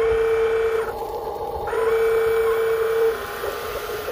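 Huina 1573 RC dump truck's electric tipper motor whining as the bed lifts to dump its load of rice grain. It runs in two spurts of one steady pitch, about a second and then about a second and a half, with a pause of about a second between.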